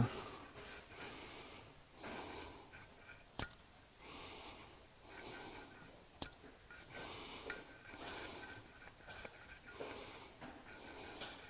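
Quiet handling of a small carburetor with a hand pressure pump and gauge attached: faint rubbing now and then, and two sharp clicks, one about three seconds in and one about six seconds in.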